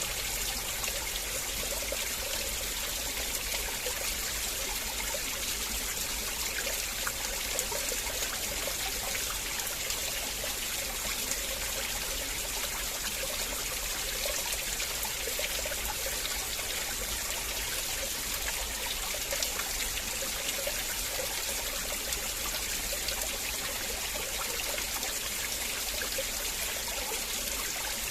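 River water flowing steadily, an even rushing with trickling and bubbling through it.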